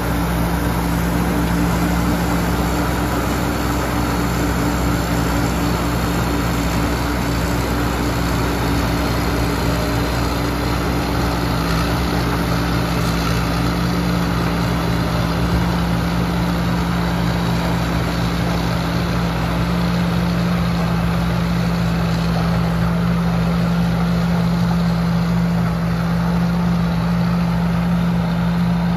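Tamco S7000 combine harvester running at a steady working pace while harvesting corn: a continuous engine drone mixed with the noise of its cutting and threshing machinery, holding the same pitch and loudness throughout.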